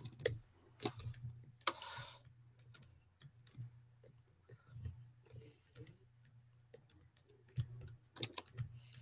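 Scattered faint clicks and taps of a computer keyboard and mouse, with a low steady hum underneath; a few louder clicks come near the end.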